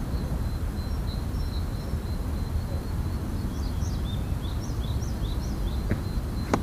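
Woodland ambience: a steady low rumble with a faint high steady tone, and a small bird singing a run of short chirps through the middle. Near the end come two sharp clicks, the second louder.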